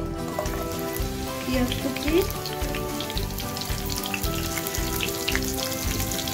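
Chopped spring onions sizzling and crackling in hot oil in a frying pan, the crackle starting as the pieces drop in. Background music plays underneath.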